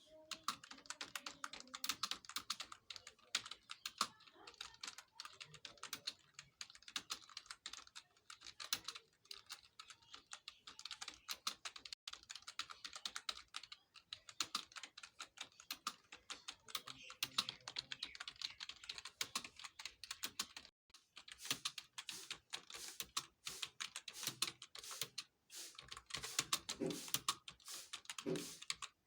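Fast, continuous typing on a computer keyboard, a rapid run of key clicks typed at speed for a typing test, broken only by a brief pause about 21 seconds in.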